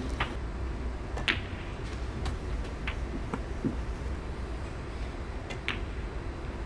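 Sharp clicks of snooker balls: the cue tip striking the cue ball and balls knocking together, about half a dozen separate clicks. Under them is the low steady hum of a hushed arena.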